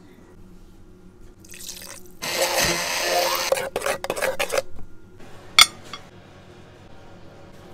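Blender whirring for a few seconds as tuna and mayonnaise are puréed into tonnata sauce in a stainless steel cup. About two seconds later comes a single sharp metallic clink, as a stainless steel ring mould is set down on a plate.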